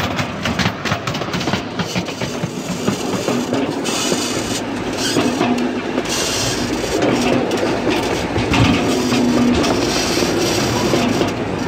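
Ride-on miniature railroad train rolling along its track, heard from aboard: a steady running noise, with the wheels clicking over the rail joints, most densely in the first couple of seconds.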